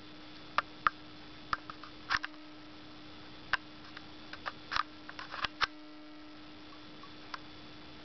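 Small sharp clicks and taps at irregular intervals, about a dozen of them with a cluster in the middle, from a rainbow lory moving against a toy in its wire cage. A steady low hum runs underneath.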